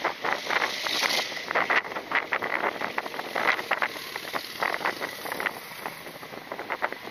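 Strong, gusty wind buffeting the camera's microphone, a rough rushing noise broken by many irregular crackles.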